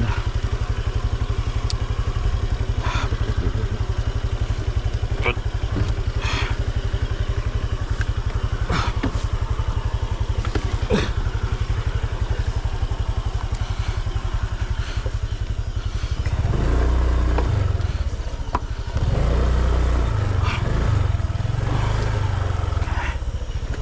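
Motorcycle engine running steadily at low speed, with scattered small knocks and clatter over rough ground. About two-thirds of the way through the engine gets louder and heavier, dips briefly, then stays louder.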